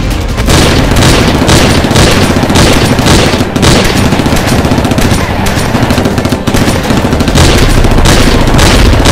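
Sustained, loud automatic gunfire: rapid shots packed densely together over a deep rumble.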